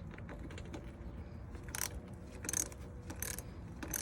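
Ratchet wrench with a 10 mm socket clicking in short strokes, four bursts from about two seconds in, turning a cross-threaded bolt that just spins instead of tightening.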